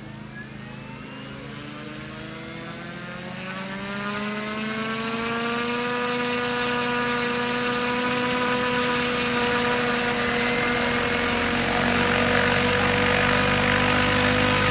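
Crop-spraying unmanned helicopter spinning up its main rotor: a rising whine over about the first six seconds, then a steady pitched hum with rotor noise that keeps growing louder.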